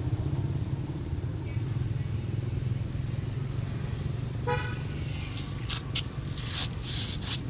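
Steady low rumble of a running vehicle engine, with a short toot about four and a half seconds in and a few brief hissy clicks near the end.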